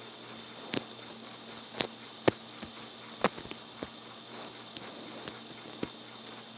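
Kitten pawing and batting at a string on a bedspread close to the microphone: about seven irregular soft taps over a steady faint hiss, the sharpest a little over two seconds in.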